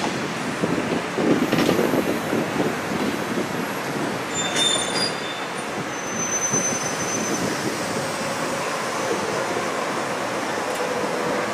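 Freight gondola cars rolling slowly past: a steady rumble of steel wheels on rail, with short high-pitched wheel squeals about halfway through.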